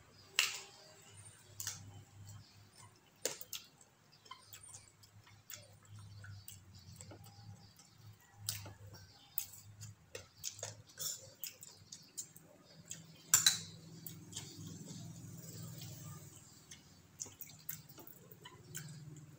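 Close-up eating sounds: chewing and lip smacking in irregular sharp clicks, with the loudest click a little past two-thirds through.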